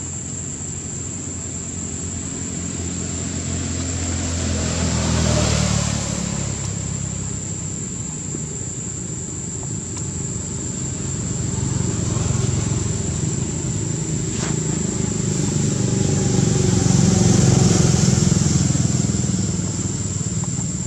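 Motor vehicles passing: one engine swells and fades about five seconds in, then another builds to a louder peak near the end.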